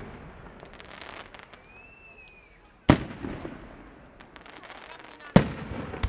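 Aerial firework shells bursting: two sharp bangs about three seconds and five and a half seconds in, each with a rumbling tail, and crackling from the glittering stars in between.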